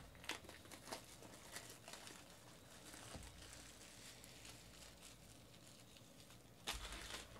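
Clear plastic trading-card pack wrapper crinkling as it is opened and crumpled by hand: faint scattered crackles, with a louder rustle near the end.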